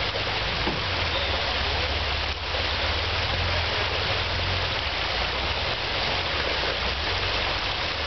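Steady rush of creek water flowing over rocks, with a low, even engine rumble underneath from the Jeep crawling up the streambed.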